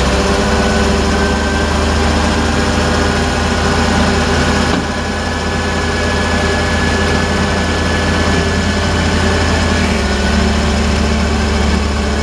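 Forklift engine running steadily as the forklift drives down the ramp of a tilt-tray tow truck, a low hum with a thin steady whine above it that stops about ten seconds in.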